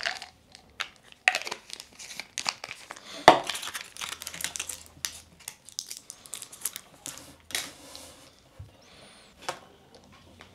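Plastic pill packaging crinkling and rustling, with irregular small clicks, as thermogenic fat-burner pills are taken out by hand.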